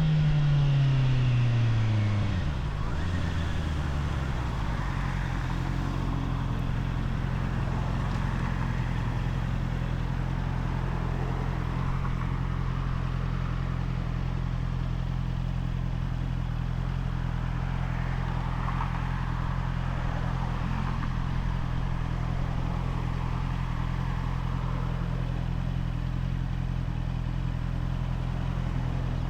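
Honda CBR650R inline-four engine on its stock exhaust, falling in pitch as the revs drop over the first few seconds, then idling steadily.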